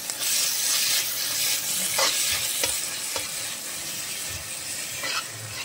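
Onion and tomato masala sizzling in hot oil in an iron kadai while a flat metal spatula stirs it, with a few sharp scrapes of the spatula against the pan. The sizzle eases a little toward the end.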